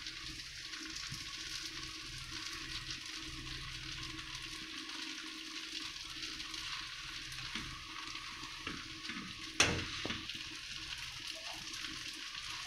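Spaghetti with chicken and vegetables sizzling in a non-stick wok over a low gas flame as it is stirred and tossed with a wooden spatula, a steady hiss. One sharp knock about three-quarters of the way in.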